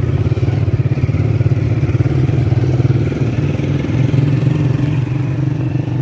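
A vehicle engine running steadily with a fast, even pulse while travelling along the road.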